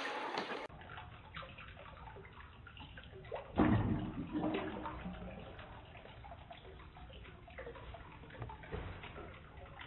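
Faint water trickling and sloshing in a home aquarium, with a louder slosh about three and a half seconds in.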